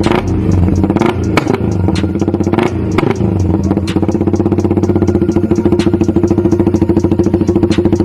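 Small air-cooled Honda motorcycle engine running, its pitch rising and falling briefly a few times in the first three seconds, then settling to a steady idle with a quick, even exhaust beat from about four seconds in.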